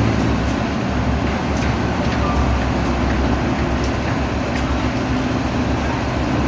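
Heavy diesel engine running steadily at a low, even hum, with a few faint clicks over it.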